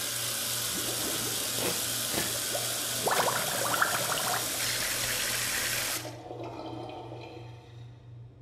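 Kitchen sink tap running, water splashing over hands being washed, then shut off abruptly about six seconds in.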